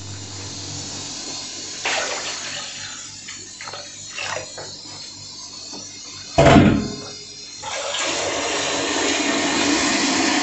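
Water sloshing and splashing as rice soaks in a large aluminium pot, with one loud thud about six seconds in. From about eight seconds a steady hiss sets in.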